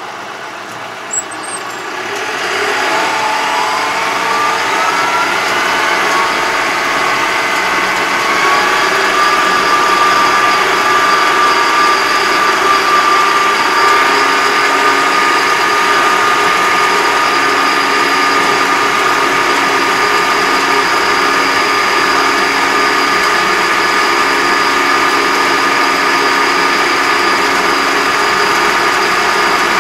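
A Yanmar YT333 tractor heard from inside its cab as it pulls away and speeds up: after a brief click, the engine and drivetrain tones rise in pitch for several seconds, then settle into a steady run with a high whine at road speed.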